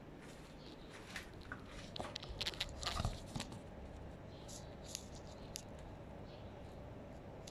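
Handling noise as a phone camera is moved and set in place: fabric rubbing close to the microphone, with a cluster of crunchy clicks and knocks between about two and three and a half seconds in, then a few light ticks.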